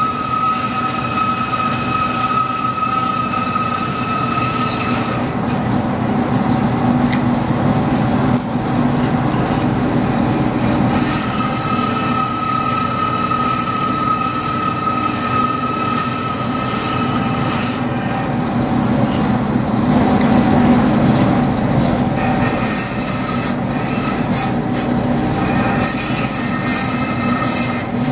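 DoALL vertical bandsaw cutting a thick metal disc, the blade running steadily through the cut. A thin high ringing tone rises out of the cutting noise and fades again, several times.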